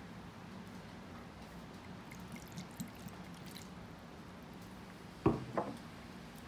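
Liquid seasoning poured from a bottle onto a plate of raw fish pieces, heard as two short splashes a fraction of a second apart about five seconds in, over a low steady hum.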